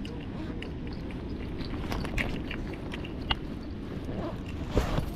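Scattered small clicks and rustles of fishing line and a hook being handled, with a sharper click a little past three seconds in and a louder knock near the end, over a steady low rumble.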